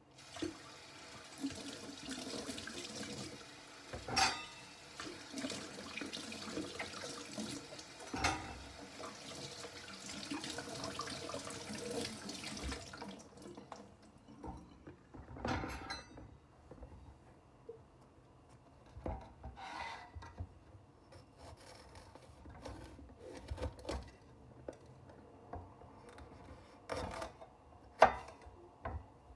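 Kitchen tap water running over pointed peppers as they are rinsed, with a couple of knocks. The water stops about halfway through, leaving scattered rubbing and taps as the wet peppers are handled, and near the end a sharp crack as a knife cuts into a pepper on a wooden chopping board.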